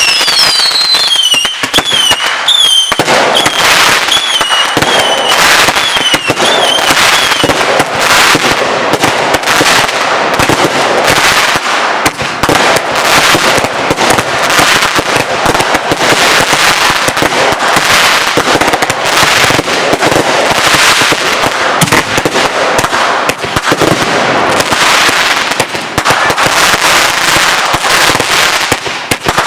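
Consumer fireworks going off in rapid, overlapping succession. Whistling fireworks shriek with a wavering pitch over and over in the first seven seconds or so. After that, a dense, continuous barrage of cracks and bangs fills the rest of the time.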